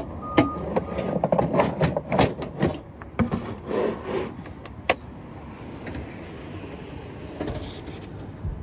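Gear being packed away in a truck bed: a plastic case is latched shut, items are lifted and set down, and a wooden box is slid into place, giving a run of clicks, knocks and rubbing that dies down after about five seconds. A repeating electronic beep sounds in the first second.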